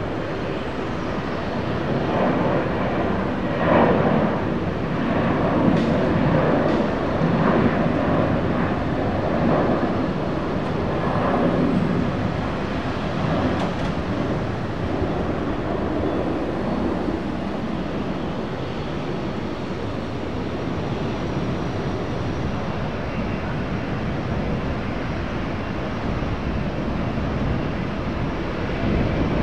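Jet airliner's engines, a broad rumble that swells within the first few seconds, stays loudest until about twelve seconds in, then settles to a steadier, lower rush.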